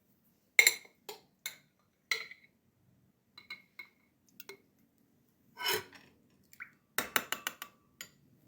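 Kitchenware clinking: scattered sharp clinks of utensils against dishes or pots, with a quick run of several clinks near the end.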